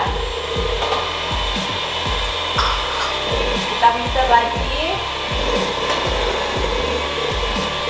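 Electric hand mixer running steadily, its beaters whirring through pancake batter in a stainless steel bowl.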